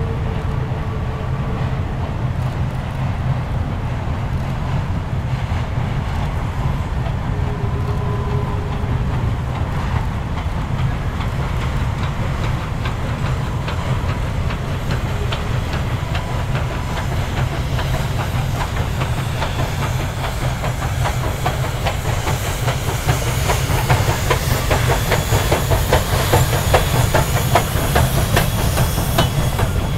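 Western Maryland 1309, a 2-6-6-2 articulated steam locomotive, working a freight train past, with a deep steady rumble and hiss of steam. In the second half its freight cars roll by, with quick clicking of wheels over rail joints that grows louder near the end.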